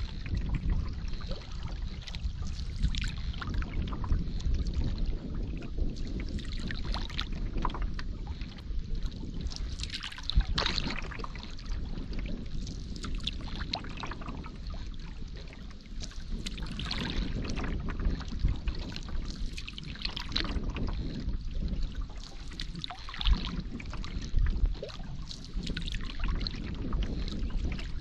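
Canoe paddle strokes splashing and dripping in lake water at an irregular pace of one every few seconds, over a steady low rumble.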